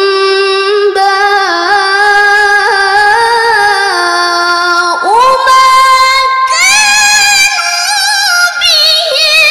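A young woman's solo Qur'an recitation (tilawah) in melodic maqam style: long held notes with wavering melismatic ornaments. About halfway through she steps up to a higher sustained note, then climbs higher again.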